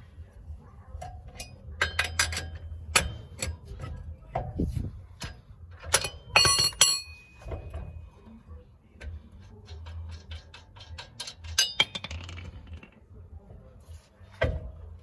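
Metal clinks and knocks of wheel nuts and a wheel spanner being handled as a loosened car wheel is taken off its hub, with one bright ringing clink about six seconds in.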